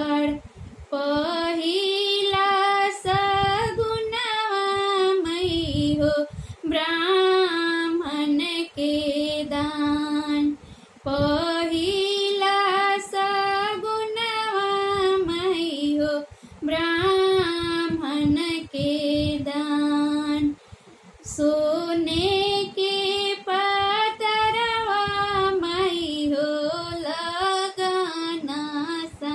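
A woman singing a shagun geet, a North Indian wedding folk song, solo and unaccompanied. She sings in phrases, several ending on a long held note, with brief breaths between them.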